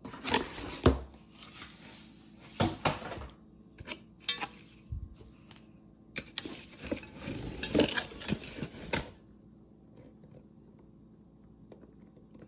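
Cardboard packaging being torn and rustled in several bursts as an enamelled cast-iron Dutch oven is unboxed, with light clicks and knocks from handling the pot.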